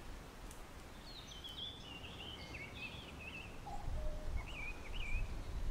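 Quiet outdoor ambience with a small bird singing short, wavering high chirps from about a second in. A low rumble joins about two-thirds of the way through.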